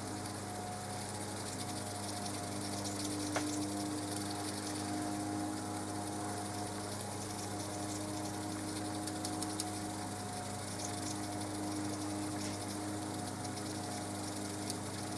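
Cossor CR 1603A reel-to-reel tape recorder running in rewind: a steady motor and reel whir with a hum and a slight vibration, and one faint click about three seconds in. The owner puts the uneven drive down to an idler wheel with a cracked pot-metal base.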